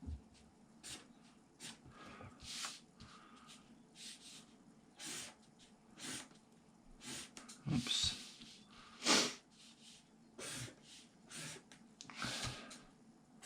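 Pen strokes on paper: a series of short, irregular scratchy strokes with brief pauses between them, a few longer sweeps loudest near the middle.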